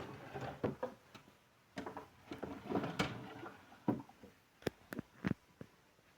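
Small objects being handled and set down on a dressing table: a run of irregular light clicks and knocks with brief rustling between, several sharp clicks close together in the second half.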